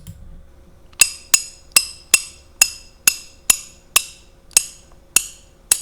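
Matraca (rattle) sound effect played back slowed down: about eleven sharp clicks, roughly two a second, each with a brief bright ring.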